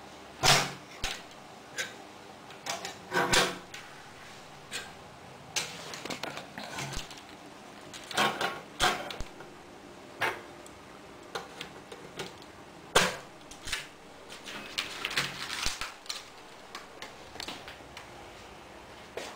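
Thin PVC ceiling tile and small metal grid pieces being handled on a tabletop: irregular clicks, taps and plastic rustles, with a few sharper knocks, the loudest about half a second in and about 13 seconds in.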